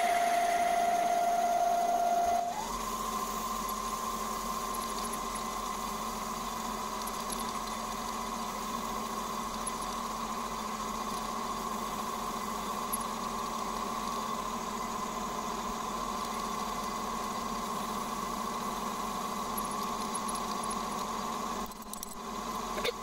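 Small metal lathe running with a steady motor whine while a graphite bar is faced and drilled. About two and a half seconds in, the whine shifts up in pitch and the sound gets quieter, then holds steady, with a brief dip near the end.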